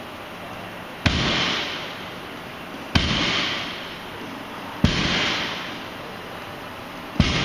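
Four sharp impacts about two seconds apart, each trailing off in about a second of hissy echo.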